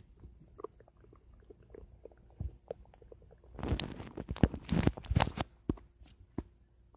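Human stomach gurgling: scattered small pops and squelches at first, then a louder bubbly run of gurgles from about halfway through, tailing off into a few last pops.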